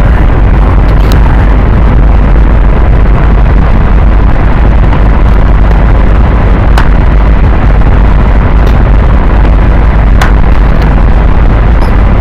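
Harsh, heavily distorted electronic noise held at full level, steady and dense, with a deep rumbling low end and a few sharp clicks scattered through it.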